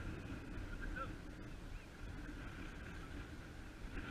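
Wind buffeting a camera microphone, a continuous uneven low rumble, with a faint steady higher hum behind it.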